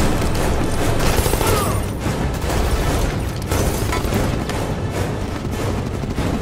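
Action-film music with heavy low booms over a steady roar of wind and aircraft engines.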